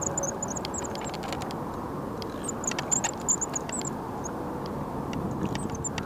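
Spinning reel being cranked to bring in a hooked fish: a steady whirr of the reel with scattered light ticks, and short high chirps over it.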